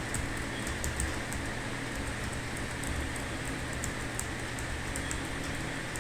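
Computer keyboard keys being typed in quick, irregular runs of light clicks, over a steady background hum and hiss.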